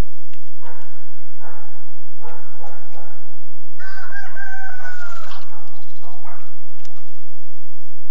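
A rooster crowing once, a drawn-out crow starting about four seconds in. Before it come four short harsh screeching calls in quick succession, and another follows near the end, typical of a Eurasian jay.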